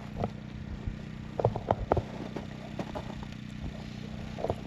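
A steady low mechanical hum, with a few short knocks and clatters about one and a half to two seconds in and again near the end.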